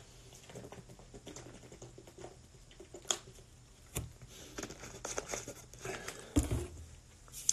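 Faint clicks and rustles of a man drinking from a glass, with a sharper click about three seconds in and a soft low knock about six and a half seconds in.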